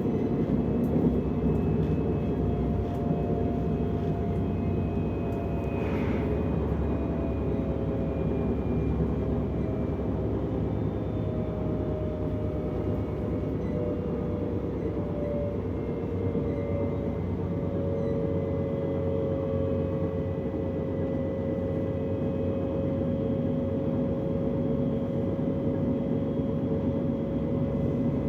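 Ride inside a DB class 425 electric multiple unit under way: a steady rumble of the wheels on the track, with a thin whine from the electric drive that drifts slowly lower and then holds steady.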